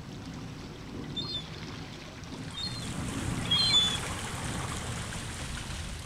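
Sea water splashing and rushing around a flock of scoters and gulls on a bay, with three short high calls from the birds.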